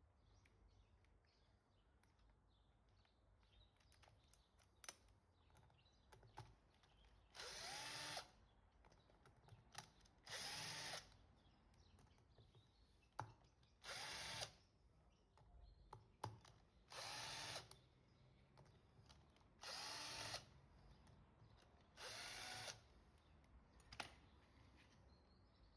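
Cordless drill-driver spinning out the bolts of an electric scooter's hub-motor side cover: six short whirs about three seconds apart, each rising then falling in pitch, with light clicks of bolts and bit in between.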